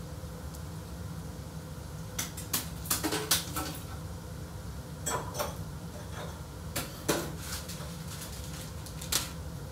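Kitchenware clattering and clinking in several short clusters, over a steady low hum.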